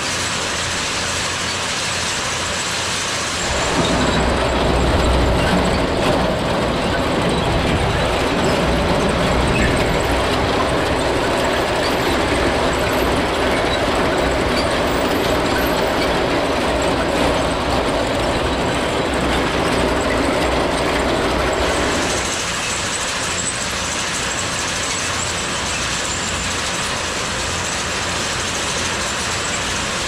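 Chain-driven hay bale elevator running, its chain and flights clattering steadily as small square hay bales ride up it. The clatter is louder and fuller from about four seconds in until about 22 seconds.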